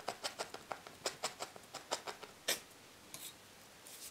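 Felting needle jabbing into wool on a pipe-cleaner tail: a quick run of soft ticks, about six a second, ending with a louder tick about two and a half seconds in, then a few faint clicks near the end.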